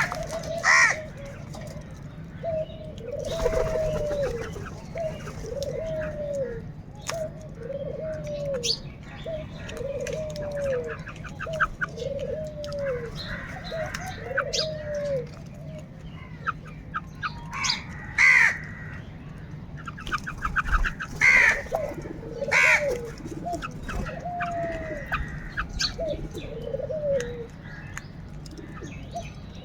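Crows calling among the flock: a few loud, harsh caws stand out, while a low arched hooting note repeats about once a second in two long runs, with scattered clicks and quick ticking calls between.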